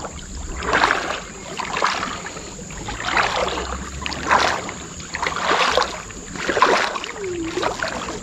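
Shallow floodwater sloshing and splashing in a rhythm of about one surge a second while a gill net is laid out by hand.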